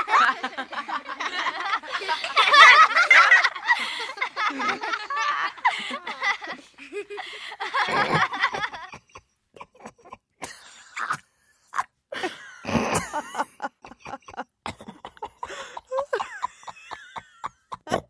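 People laughing. For the first six seconds or so several voices laugh together in a dense, busy stretch. After that the laughter comes in short separate bursts and snickers with pauses in between.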